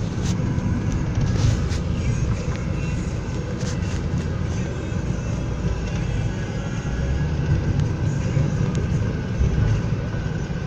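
Steady low rumble of a car being driven, heard from inside the cabin: engine and tyre road noise.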